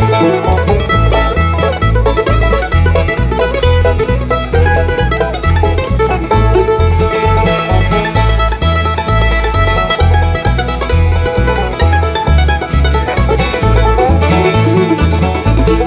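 Bluegrass band playing an instrumental break on plucked string instruments over a steady, stepping bass line.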